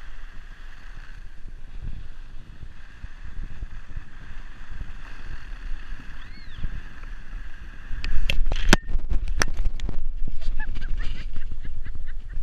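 Skis sliding over groomed snow with wind on the microphone, then about two-thirds of the way through a wipe-out: a burst of loud knocks and scrapes as the skier falls and tumbles onto the snow.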